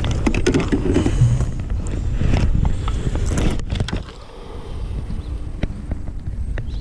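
Wind buffeting the camera microphone: a steady low rumble, with a few light clicks.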